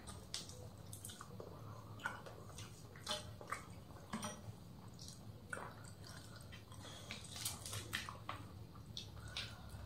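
Faint eating sounds: fingers mixing and squeezing rice on a banana leaf and chewing, with scattered soft smacks and clicks over a low steady hum.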